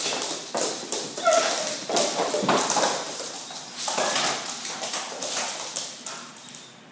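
Salukis' paws scrabbling and thudding on a couch, then clattering across a hardwood floor as the dogs play and chase, dying away near the end.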